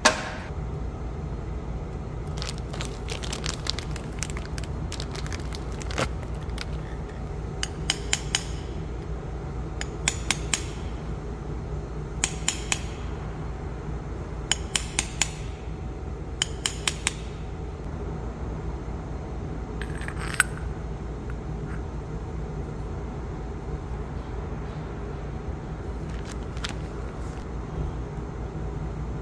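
Metal tools and parts clinking during tractor clutch assembly work, mostly in short groups of three or four sharp clinks about every two seconds, over a steady low mechanical hum.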